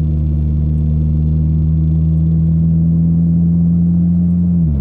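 Car engine and road drone heard inside the moving car's cabin: a steady low hum that drops a step in pitch at the start and again at the end as the engine speed falls.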